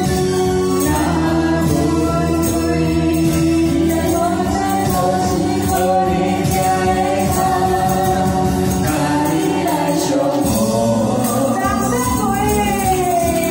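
A man and a woman singing a duet through microphones and a PA over a karaoke backing track, with a tambourine jingling along to the beat.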